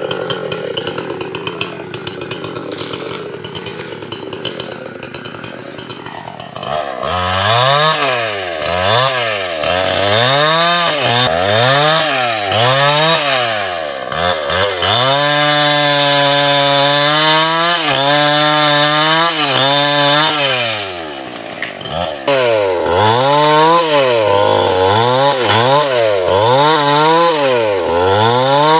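Two-stroke chainsaw engine revved up and down over and over, about once a second, starting about a quarter of the way in. For several seconds in the middle it holds a steady high pitch, then drops briefly and goes back to rising and falling revs. Before the revving there is a steady rushing noise.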